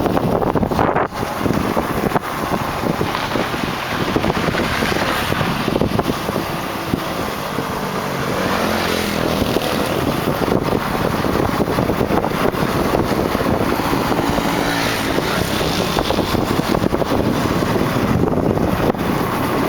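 Wind rushing and buffeting on the microphone of a Kawasaki KLX dirt bike on the move, with steady road noise underneath.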